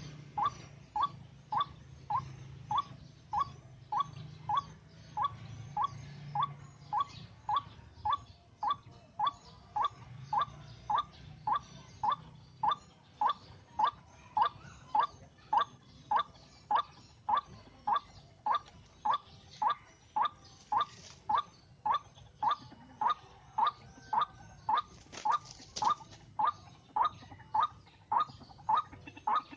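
White-breasted waterhen (ruak-ruak) call: one short, slightly rising note repeated steadily, a little under two a second.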